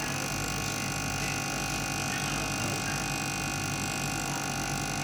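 A small electric device running with a steady hum made of several fixed tones.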